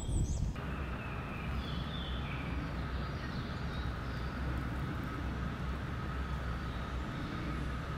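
Steady outdoor background rumble with a faint steady hum, and a few faint bird chirps in the first few seconds.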